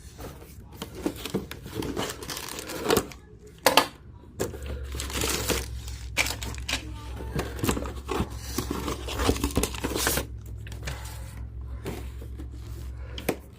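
Cardboard and plastic toy packaging being handled and pulled open, with irregular crinkling, rustling and tearing. A low steady hum joins in about four and a half seconds in.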